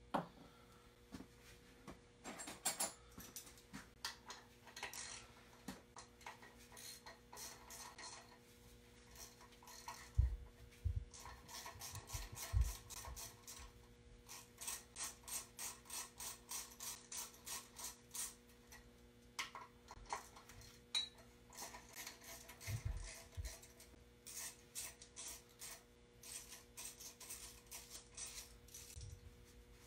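Hand ratchet wrench clicking in runs of about three or four clicks a second as bolts are loosened on the engine's front accessory-drive brackets, with a few low knocks of tools and parts.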